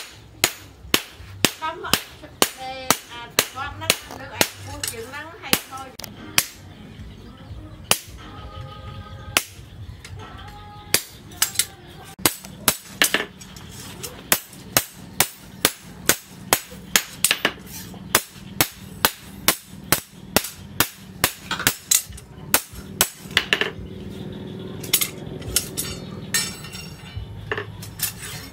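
Hand hammer striking a steel machete blade on a post anvil: sharp metallic blows about two a second, in runs with short pauses between them.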